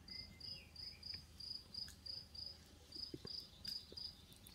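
A cricket chirping steadily, short high chirps about three a second. Faint soft clicks of raw meat pieces being pressed by hand into a clay pot.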